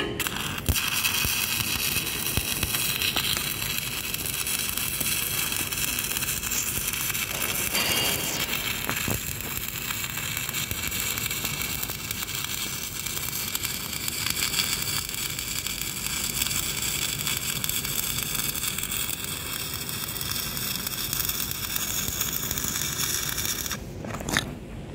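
Shielded metal arc (stick) welding with an LB-52 (E7016) low-hydrogen electrode on steel pipe: the arc crackles steadily, striking up about half a second in and breaking off about a second before the end.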